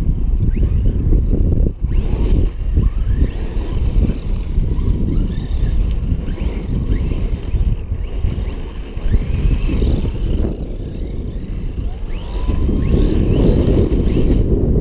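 JLB Racing Cheetah RC monster trucks' brushless electric motors whining, the pitch rising and falling again and again as the throttle is worked. Heavy wind noise on the microphone runs underneath and swells near the end.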